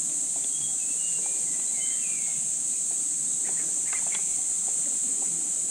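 Steady high-pitched insect chorus with a few faint bird chirps over it. A few light clicks come about two-thirds of the way through.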